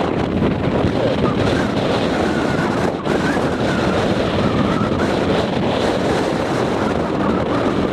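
Wind buffeting the microphone aboard a boat at sea: a loud, steady rush mixed with noise from the boat and the water.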